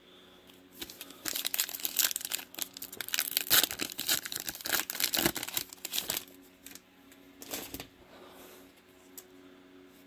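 Foil trading-card pack wrapper torn open and crinkled: a dense run of crackling for about five seconds, then a few scattered rustles.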